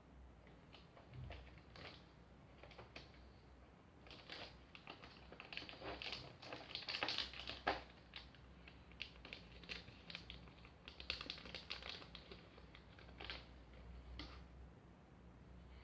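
Small plastic parts and packaging being handled: a run of quick, light clicks and taps, busiest in the middle with one sharper click, then sparser.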